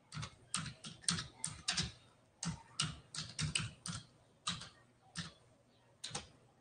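Typing on a computer keyboard: an uneven run of quick keystrokes, dense for the first four seconds, then a few scattered taps.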